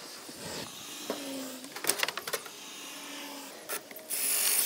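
Wooden boards knocking and clicking as they are handled and set in place. Near the end a cordless drill runs briefly, about half a second, against a pine board on the frame.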